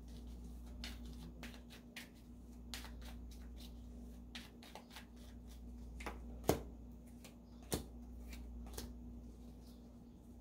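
A tarot deck being shuffled by hand: a run of soft card clicks and slaps, with two sharper snaps about six and a half and seven and a half seconds in.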